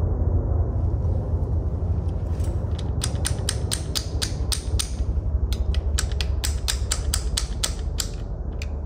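Low rumble of helicopters flying over, fading toward the end, with two runs of quick light clicks, about five a second, starting a few seconds in and pausing briefly about halfway.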